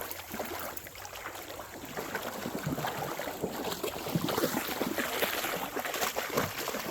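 Footsteps crunching and splashing along a shallow, gravelly creek bed, with irregular strokes over the trickle of flowing water.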